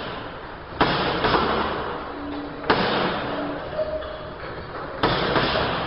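Punches landing on a heavy punching bag in three bursts, each starting with a sharp hit and fading in a noisy wash over about a second.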